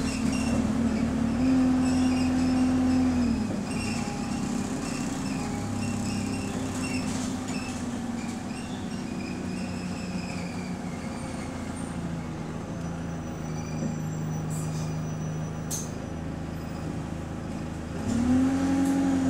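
Bus engine heard from inside the saloon. It runs under power at first, drops back to a low idle about three seconds in while the bus stands, then pulls away near the end, the engine note rising and growing louder.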